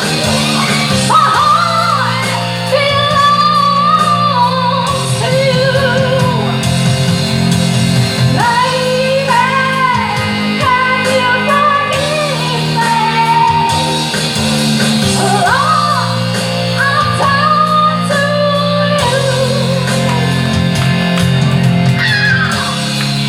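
Live rock band playing a power ballad: a singer's long, sliding notes over electric guitar, bass and drums, echoing in a large hall.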